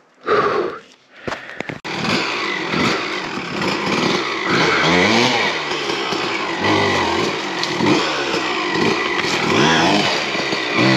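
Kawasaki KLX dirt bike's small single-cylinder four-stroke engine revving up and down over and over under throttle blips as it is ridden up steep, rough ground. It comes in suddenly about two seconds in.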